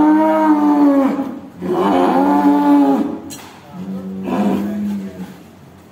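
A cow, roped down on its side for hoof trimming, moos three times. Each moo is long and drawn out, about a second and a half, and the third is fainter.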